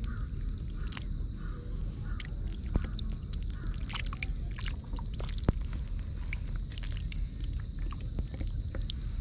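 Stranded fish and prawns flapping in wet mud: many scattered sharp clicks and slaps, two louder ones near 3 and 5½ seconds in. Under them run a steady low rumble and a steady high buzz.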